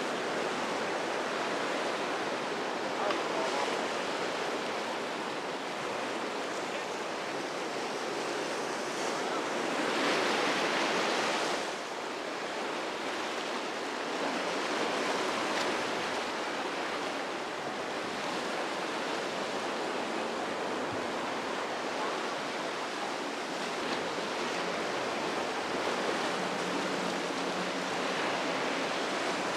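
Ocean surf washing steadily at an inlet, with one wave breaking louder for a second or two about ten seconds in.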